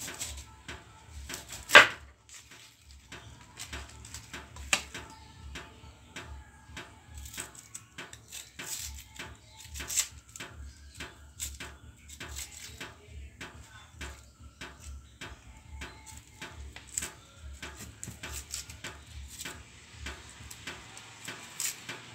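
Kitchen knife chopping garlic on a wooden cutting board: irregular knocks of the blade on the wood, the loudest about two seconds in.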